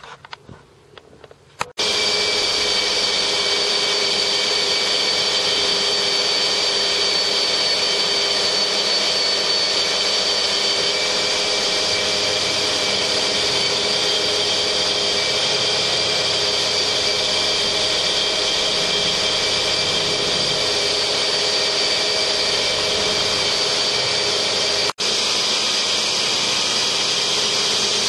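A loud, steady motor whine with a high tone in it, starting abruptly about two seconds in and cutting out for an instant near the end.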